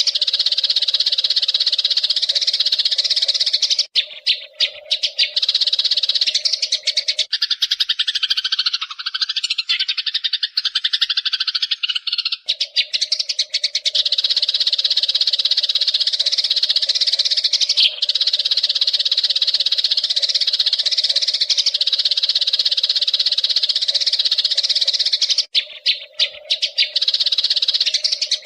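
Eurasian tree sparrows chattering in a dense, rapid stream of high chirps. A lower, gliding call joins from about 7 to 12 seconds in, and the chatter breaks off briefly about 4 seconds in and again near the end.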